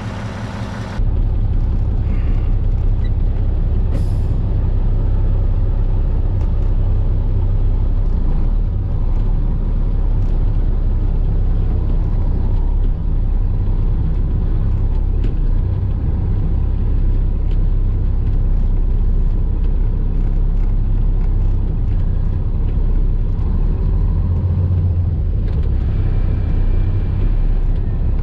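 Cummins diesel engine of a Kenworth truck idling steadily, heard from inside the cab, with a short hiss of air about four seconds in.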